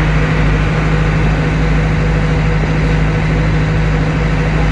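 Engine of a motorised outrigger boat (bangka) running steadily under way, a constant low drone that holds one pitch.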